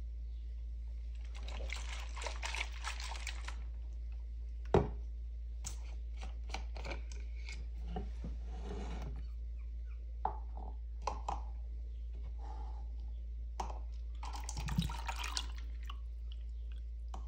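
Handling noise from a plastic spray bottle having its screw-on spray top twisted off, then a metal mesh strainer and cup set out on a wooden table. Scattered clicks, taps and brief rustles, with one sharper knock about five seconds in, over a steady low hum.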